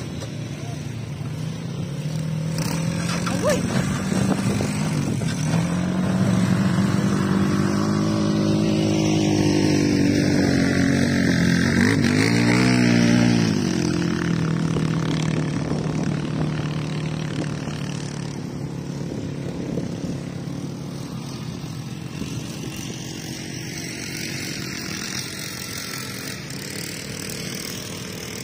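ATV (quad bike) engine running, getting louder toward the middle, with its pitch quickly rising and falling about twelve seconds in, then slowly fading away.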